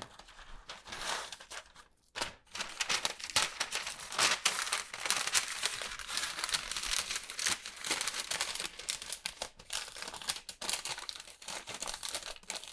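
Brown masking paper crinkling and rustling as it is folded and pressed by hand into a cabinet drawer opening, with a short lull about two seconds in.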